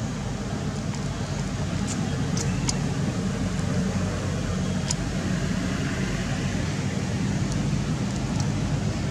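Steady low machine-like hum, with a few short high ticks about two and five seconds in.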